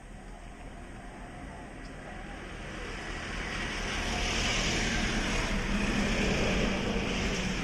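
A motor vehicle passing by: its noise builds over a few seconds, peaks past the middle, and begins to fade near the end.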